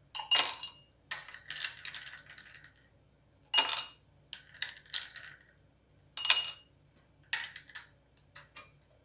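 Steel spoon scooping ice cubes out of a glass bowl and tipping them into drinking glasses: a run of sharp clinks and clatters of ice, spoon and glass, several with a brief glassy ring.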